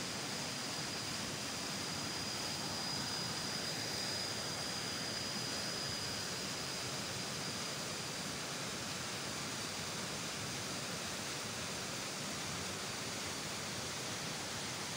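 Steady rushing hiss of outdoor background noise, with a faint high steady whine that fades away a little over halfway through.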